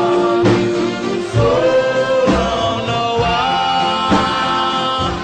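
Reggae song: a singer holding long, slightly bending notes over a steady beat, with a drum stroke about once a second.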